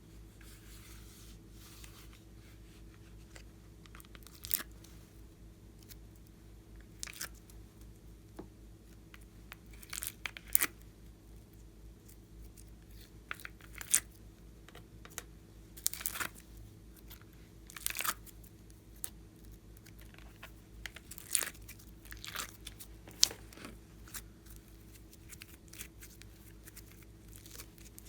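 Slime being worked by hand: scattered sticky crackles and pops, about a dozen, coming at irregular intervals.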